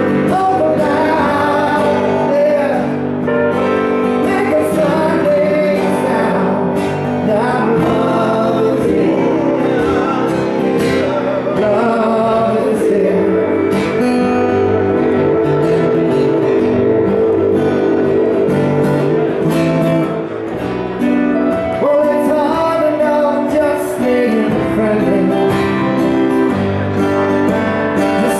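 Live acoustic band music: acoustic guitars strumming and picking a song.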